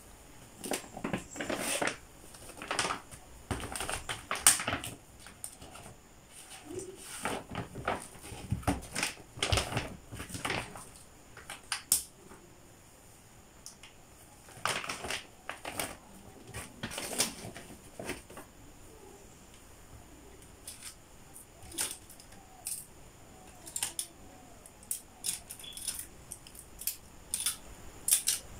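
Irregular taps, knocks and short rustles of things being handled and set down on a desk: books, paper and a laptop.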